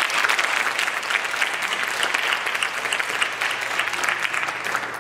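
Audience applauding: many people clapping at once, dying away right at the end.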